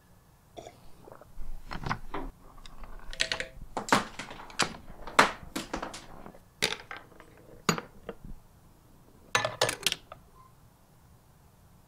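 Parts of a homemade chain-reaction machine being set off: an irregular string of sharp clicks, taps and clacks as small balls and metal pieces drop, roll and strike one another, with a quick cluster of knocks near the end.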